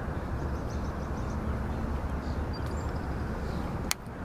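Steady wind buffeting the microphone, with a few faint high bird chirps and one sharp click near the end.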